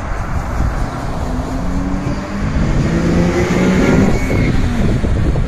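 A car driving close by, its engine note steady and then rising a little about three seconds in, over heavy wind rumble on the microphone.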